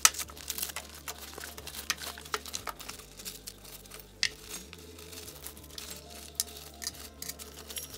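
Rustling and crinkling of bags and plastic packaging, with scattered light knocks, as items are pulled out of a backpack and set down on a table.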